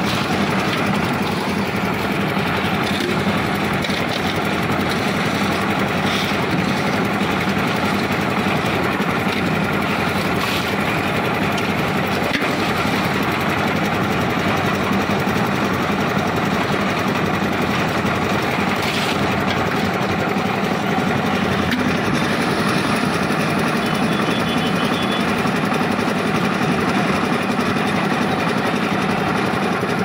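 Lift concrete mixer machine (dhalai machine) running steadily, its engine and turning drum making a continuous rattling drone, with a few brief clatters standing out.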